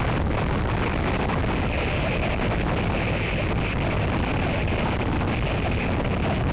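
Gusty wind blowing across the nest camera's microphone: a steady, loud rush of noise with a deep rumble underneath.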